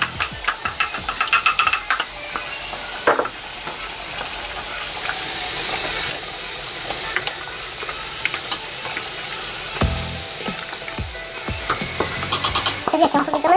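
Rapid scratching as a wooden mortar is scraped out over a pot, then a steady sizzling hiss from the oxtail sauce cooking in a steaming steel pot as it is stirred with a long spoon, with an occasional knock of the spoon. Rapid scratching returns near the end.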